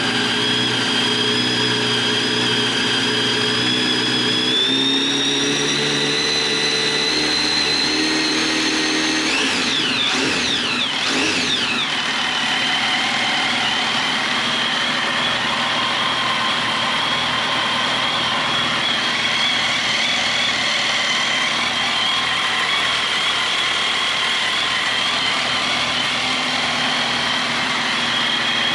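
Kawasaki ZX-10R inline-four engine idling steadily on its stand after an engine rebuild. It gives a brief up-and-down change in pitch about ten seconds in.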